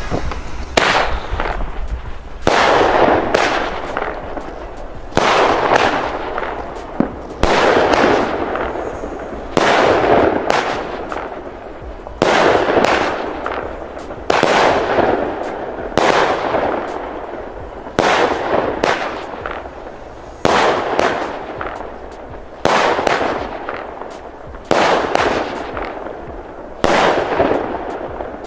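Weco 'Poison' 16-shot, 19 mm consumer firework battery firing shot after shot, about a dozen in all, one every two seconds or so. Each shot is a sharp report that trails off.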